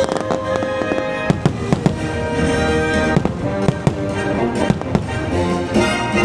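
Fireworks bursting overhead in an irregular run of sharp bangs and pops, over loud orchestral show music.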